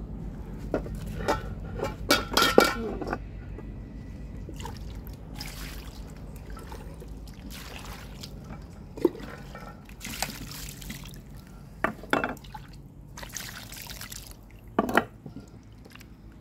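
Small fish being washed in a stainless steel bowl: water poured in from a plastic dipper and the fish rubbed and sloshed by hand. The metal bowl clanks a few times about two seconds in, with a few sharp knocks later.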